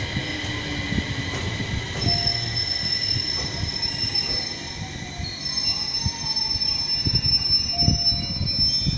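Aoimori Railway 701-series electric train running slowly, its wheels squealing with several high steady tones that shift in pitch, over a low running rumble with a few dull knocks.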